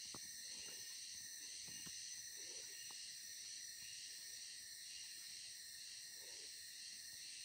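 Faint, steady, high-pitched chorus of tropical forest insects, swelling and dipping at a slow, even pace, with a few soft ticks.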